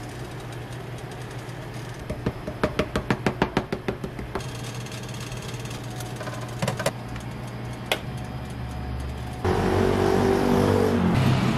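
A steady low hum with a quick run of sharp clicks about two seconds in and a few single clicks later, then, about nine and a half seconds in, louder street traffic noise with a vehicle engine passing.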